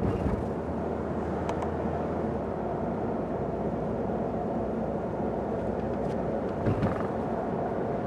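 Mazda NC Roadster driving, its steady tyre and engine noise heard as an even rumble, with one low thump about seven seconds in.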